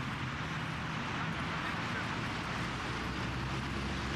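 Steady city street noise: traffic hiss and rumble.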